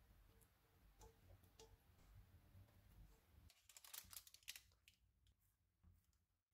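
Near silence with faint scraping and tapping of a silicone spatula against a pan and a parchment-lined tray as thick milk barfi mixture is pushed out. There is a short cluster of soft scrapes about four seconds in.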